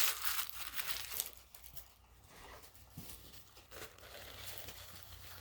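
Fast-food paper packaging crinkling and rustling as fries are handled, loudest in the first second or so, then dying down to faint scattered rustles and small ticks.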